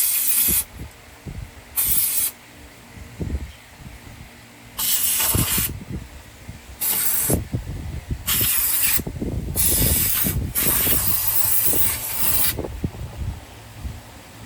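Short bursts of pressurised spray hissing, about seven of them, each half a second to two seconds long, used to clean a generator part. Light knocks and clatter of parts being handled come between the bursts.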